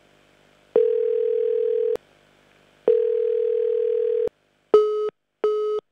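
Telephone call tones: two long ringback beeps of about a second each, then near the end the line switches to quick short busy beeps, so the call goes unanswered and is cut off.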